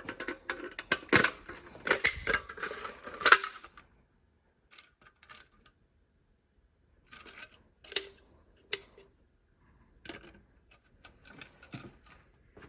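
Clattering and clicking of handled hard objects: a dense, loud run for the first few seconds, then scattered clicks and small clatters.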